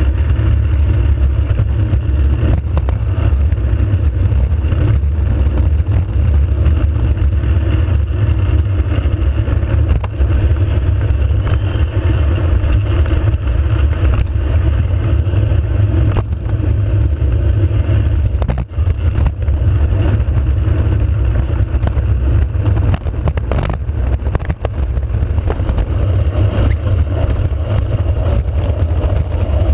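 Engineless soapbox cart rolling fast down an asphalt road: a steady low rumble of its wheels on the tarmac, with small knocks and rattles as the cart jolts over bumps.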